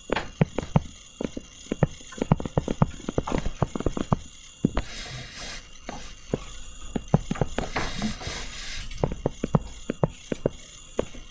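A stylus tapping and clicking on a tablet screen while writing: quick, irregular knocks several times a second. Twice in the middle there is a brief hiss lasting about a second.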